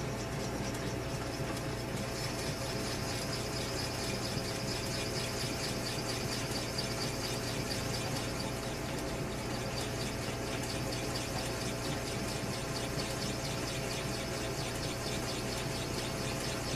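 South Bend lathe running while a drill bit cuts deeper into the bore of a motorcycle handlebar, giving a high, finely pulsing whine over the steady hum of the machine. The whine grows stronger about two seconds in.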